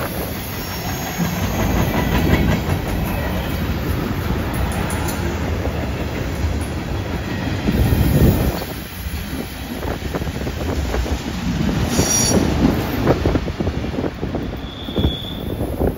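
Freight cars rolling past on a curve: a steady rumble of steel wheels on rail with repeated clicks from wheels crossing the joints. Short high wheel squeals ring out about twelve seconds in and again near the end as the last cars round the curve.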